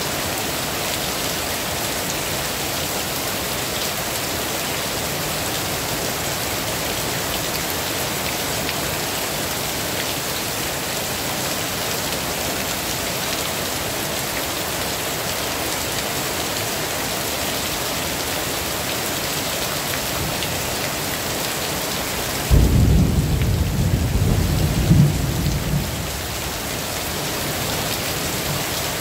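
Heavy rain falling steadily. About three-quarters of the way through, a sudden low rumble of thunder lasts a few seconds and is the loudest sound.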